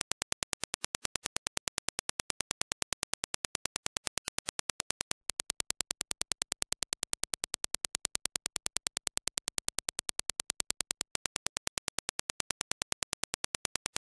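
Dirac impulse test signal: a rapid, evenly spaced train of sharp clicks. The train breaks briefly about five seconds in, where the reference impulse gives way to the same impulse played through Focal Stellia headphones, and again about eleven seconds in, where the reference returns.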